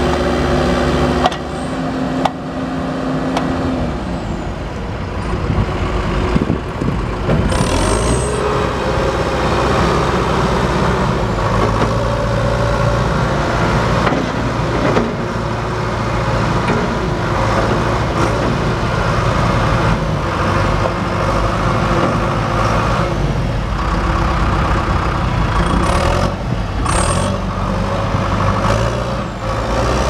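John Deere 310SE backhoe loader's turbocharged four-cylinder diesel engine running, its note rising and falling as the loader and backhoe hydraulics are worked. Brief high squeaks come about eight seconds in and again near the end.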